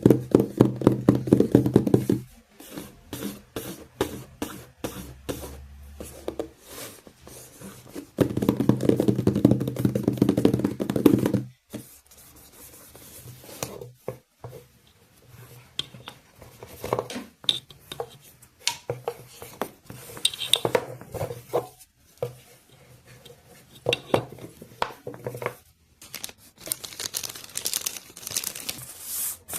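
Packaging being handled and opened: rustling and tearing of cardboard and plastic wrapping, with scattered knocks and clicks.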